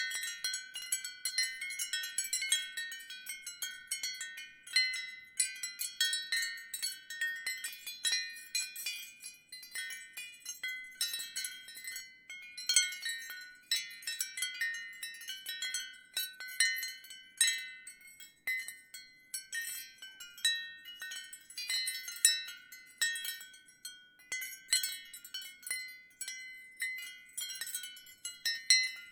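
Ceramic wind chimes tinkling in the wind, struck irregularly and often, several high bell-like tones overlapping and ringing on.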